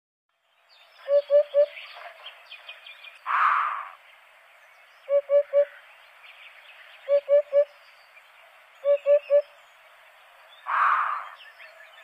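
Eurasian hoopoe singing its low, hollow 'oop-oop-oop' song: four phrases of three quick notes, about two seconds apart. Twice, a short harsh noise cuts in between the phrases.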